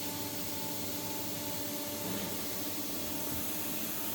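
Steady background hiss with a faint, even electrical-sounding hum, unchanging throughout: workshop room tone.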